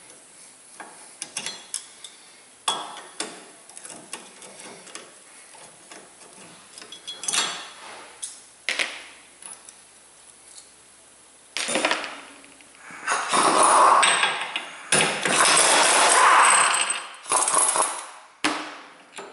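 Light metallic clicks and taps of hand tools at a car's front wheel hub. About twelve seconds in, an impact wrench runs in several bursts of a second or two each; these are the loudest part.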